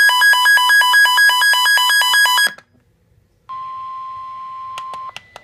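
Emergency alert tones: a loud electronic alert beeping rapidly back and forth between two pitches for about two and a half seconds, then a second of silence, then the steady single-pitch warning alarm tone of an emergency alert broadcast, which stops about a second and a half later. Faint regular clicks come in near the end.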